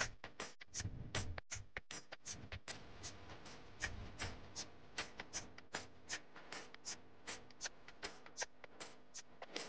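A steady run of short, sharp ticks, about three a second, evenly spaced.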